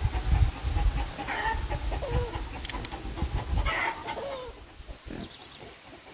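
Chickens clucking in a few short calls, over a low rumble that fades out about two-thirds of the way through, with a pair of sharp clicks near the middle.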